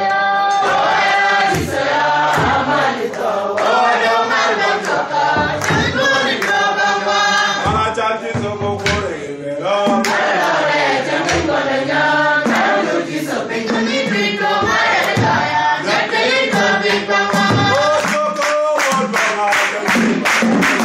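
A man singing, with other voices joining in. Quick, steady hand claps come in near the end.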